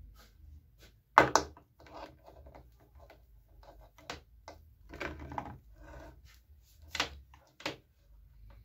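Irregular knocks, taps and rubbing as an electric nailer's power cord and plug are uncoiled and dropped onto a wooden board, the loudest a sharp knock about a second in.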